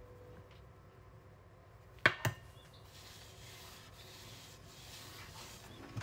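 Faint sifting of rice flour from a metal shaker over a wooden peel, with two sharp knocks close together about two seconds in.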